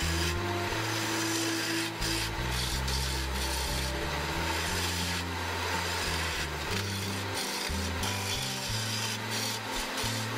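A tool scraping and cutting a spinning wood blank on a wood lathe, giving a steady rasping hiss, with background music and a bass line playing under it.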